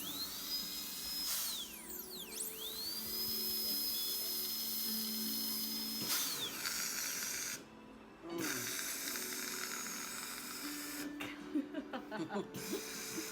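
High-speed dental drill whining: it spins up quickly to a steady high pitch, holds for about a second, winds down, then spins up again and holds for several seconds before winding down.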